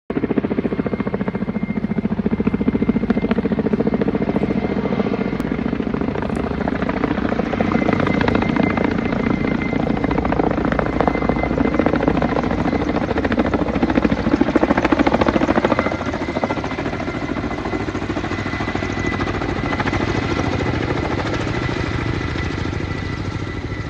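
Firefighting helicopter flying overhead, its rotor chopping steadily under a thin, steady high whine. It is loudest a little past the middle, then slightly fainter.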